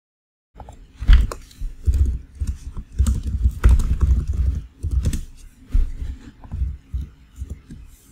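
Computer keyboard being typed on: an irregular run of key clicks with dull thuds, starting about half a second in.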